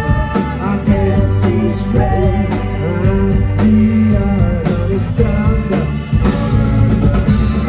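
Live rock band playing: electric guitars, bass and drums, with a lead vocal singing over them.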